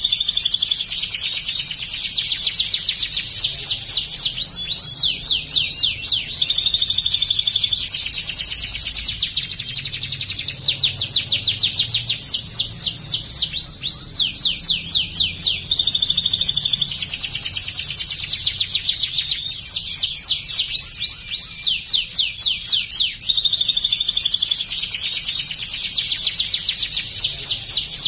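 Domestic canary singing a long, nearly unbroken song of fast rattling trills, switching to a new trilled phrase every few seconds. The trills are delivered in the ciblek (bar-winged prinia) style it has been trained on.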